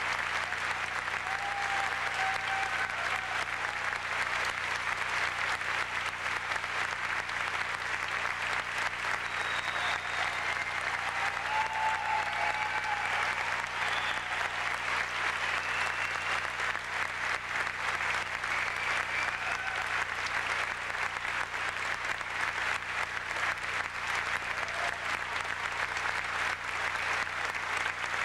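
Large concert audience applauding steadily, with a few short cheers above the clapping.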